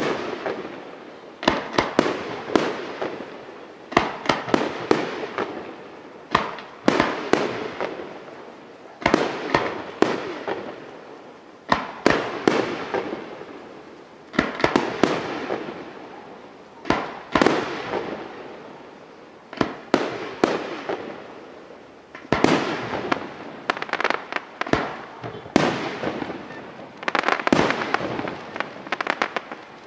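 Aerial firework shells bursting in quick succession: sharp bangs every one to three seconds, some in close clusters, each trailing off into a fading tail.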